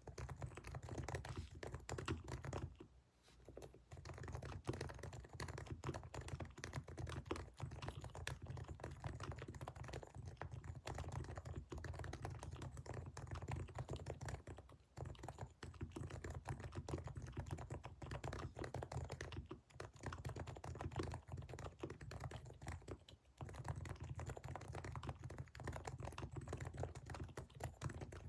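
Continuous fast typing on a Realforce R3 keyboard with fully lubed 45 g Topre electrostatic capacitive rubber-dome switches. The run of keystrokes pauses briefly about three seconds in and a few more times later.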